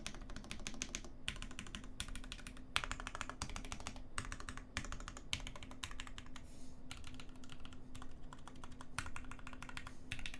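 Steady typing on a 4GT Sabre custom mechanical keyboard with lubed Cherry MX Black linear switches in an aluminum top-mount plate and PBT keycaps, giving a slightly hollow, deep-toned clacking. The keystrokes come in quick irregular runs with brief pauses.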